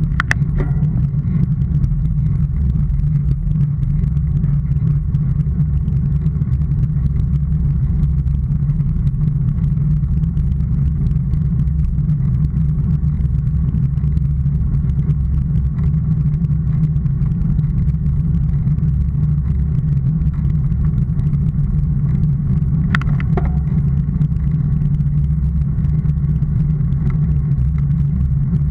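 Steady low rumble of travel along a rough country lane, wind and road noise picked up by a camera mounted low on the moving vehicle, with a single sharp click about 23 seconds in.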